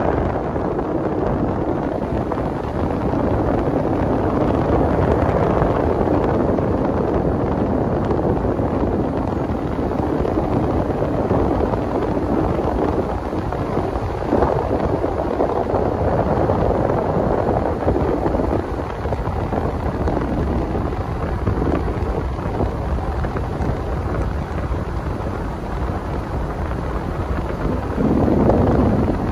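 Steady rumble from a moving car: road and wind noise.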